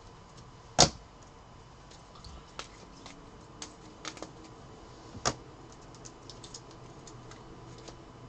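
Trading cards in plastic sleeves and top-loaders clacking against one another as they are handled and stacked: a sharp clack about a second in, another about five seconds in, and scattered lighter clicks between.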